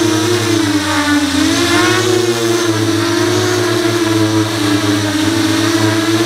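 Motors and 5-inch propellers of an FPV quadcopter whining steadily, heard from the onboard camera. The pitch wavers up and down with the throttle, dipping then rising about a second in.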